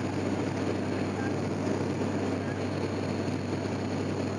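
Propeller airliner's engines running steadily, heard inside the passenger cabin: a constant low propeller hum under an even rushing noise.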